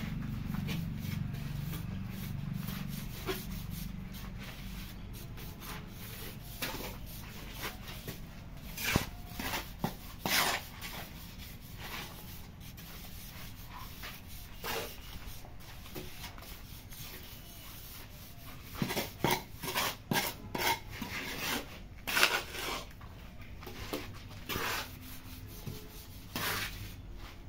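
A hand trowel scraping and rubbing wet cement mortar as it is smoothed over a pipe mould, in irregular strokes. Past the middle comes a busier run of sharper, louder scrapes.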